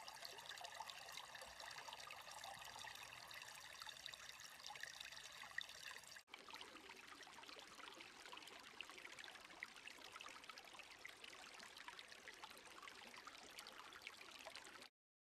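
Faint shallow stream trickling and running over stones. The sound breaks off for an instant about six seconds in, resumes, and stops suddenly just before the end.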